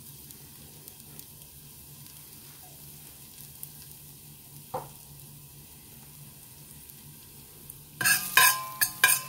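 Crushed garlic and green chilli frying in a little hot oil in a stainless steel pot, a faint steady sizzle. About eight seconds in, a metal spoon starts stirring, with loud quick scrapes and clinks against the pot.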